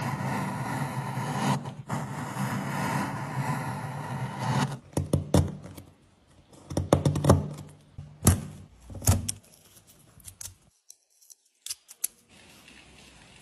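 A power tool running steadily with a low hum for about five seconds, then a series of sharp knocks and clatters of tools and wood being handled.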